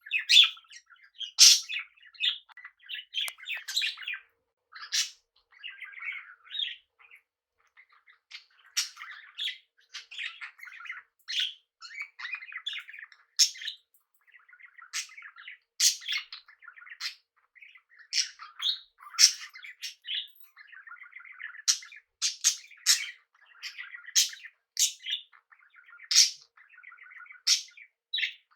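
Pet budgerigars and cockatiels chirping and chattering: a steady run of short, sharp calls over softer warbling, with brief pauses between bouts.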